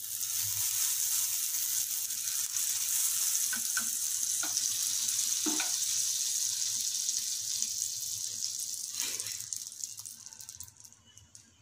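Butter melting and sizzling on a hot flat iron tawa, a steady hiss that dies away near the end, with a few faint pops.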